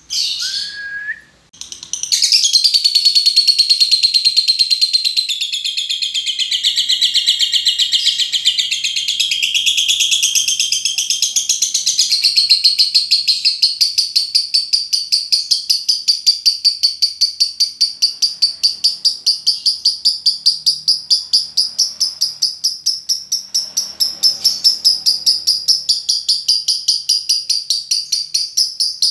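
Lovebird 'ngekek': a long, unbroken, high-pitched chattering trill. It follows a couple of short calls, starts about two seconds in and runs on without a break, settling into an even, rapid pulse.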